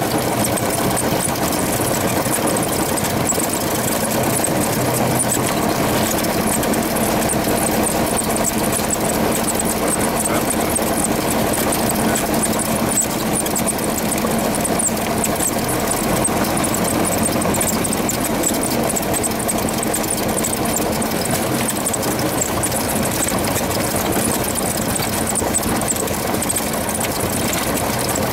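Cessna 172RG's four-cylinder Lycoming O-360 engine and propeller running steadily at low taxi power, heard from inside the cabin.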